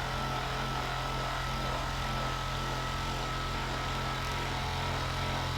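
Handheld electric massager running steadily: a constant motor hum with a thin, steady high whine.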